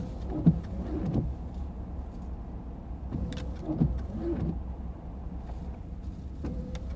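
Steady low rumble of a car idling, stopped in traffic, heard from inside the cabin.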